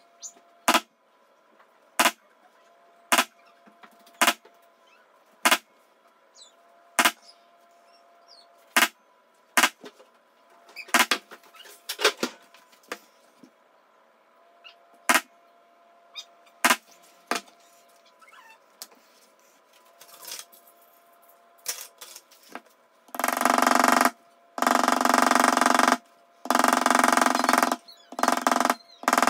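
A poly maul tapping a metal leather-stamping tool into a knife sheath, one sharp tap roughly every second with a few pauses. Near the end a much louder, steady sound comes in, stopping and starting several times.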